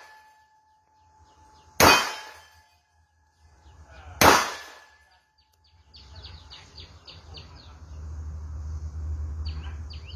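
Two gunshots from a Colt Defender .45 ACP pistol, about two and a half seconds apart, the second emptying the magazine so the slide locks back. A faint ringing tone hangs after the first shot, and from about six seconds in, birds chirp over a low rumble.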